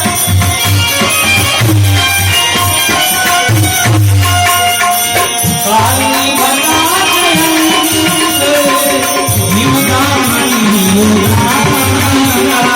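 Live devotional bhajan music: a gliding melody over a steady drum beat.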